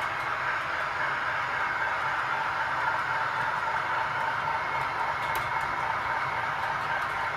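A model Colas Class 60 diesel locomotive, 60087, running slowly and steadily as it creeps up to buffer onto its train of steel wagons.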